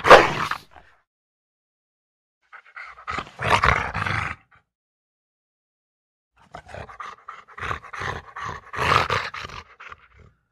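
An animal vocalising in three bursts with complete silence between them: a short one at the start, another around three to four seconds in, and a longer choppy stretch over the second half.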